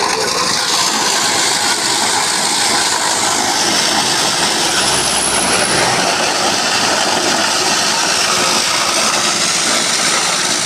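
Corn grinding machine running steadily, a loud, even mechanical din.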